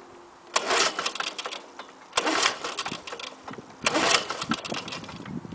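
Recoil starter of a 1984 Lawn-Boy 4630's two-stroke F engine pulled three times, about every second and a half. Each pull is a quick clattering crank of the engine turning over without catching, which the owner puts down to a bad ignition coil.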